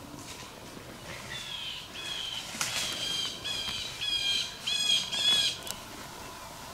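A wild bird giving a rapid series of about eight short, repeated calls, about two a second, growing louder toward the end.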